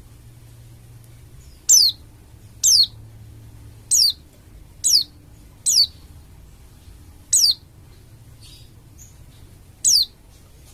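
A pleci dakun bali white-eye gives seven short, high, sharp calls, each sweeping quickly down in pitch. The calls come at irregular gaps of about one to two and a half seconds.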